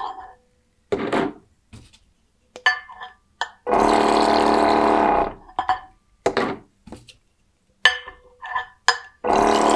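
The pump of a 12-volt liquid-filling machine, cycling in automatic mode. It runs with a steady hum for about a second and a half near the middle, stops, and starts again near the end, one bottle fill each time. Between the fills, small glass bottles clink and knock as they are swapped under the nozzle.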